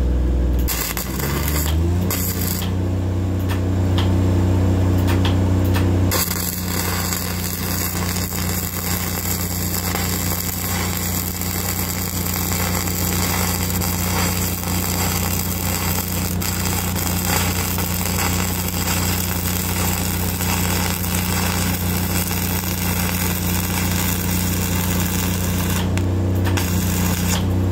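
Self-shielded flux-cored arc welding with Lincoln NR-233 wire, laying a horizontal pass on a steel column splice: a steady crackle and hiss that starts about six seconds in and stops near the end. Beneath it runs the steady hum of an engine, which rises in pitch about a second in.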